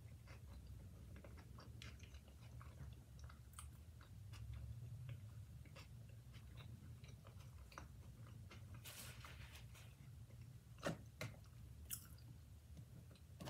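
Faint close-up chewing of a veggie burger, with small wet mouth clicks over a low steady hum. Near the end come two sharper clicks as a plastic fork picks at roasted potatoes in the takeout container.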